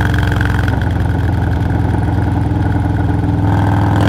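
Harley-Davidson Milwaukee-Eight 117 V-twin, Stage 2 tuned, running steadily while riding along, getting a little louder near the end.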